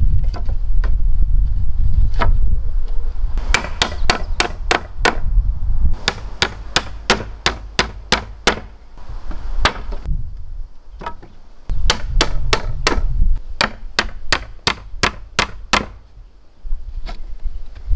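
Hammering on wood: three runs of quick, evenly spaced hammer blows, about four a second, with short pauses between the runs.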